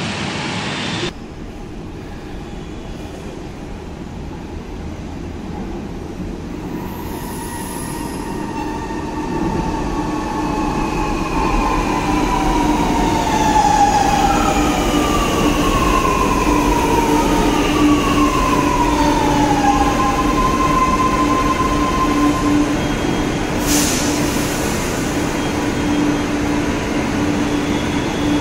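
Lucknow Metro electric train pulling into the station: a rising rumble, then several whines falling in pitch as it slows to a stop. A steady hum continues while it stands at the platform, with a short hiss about 24 seconds in.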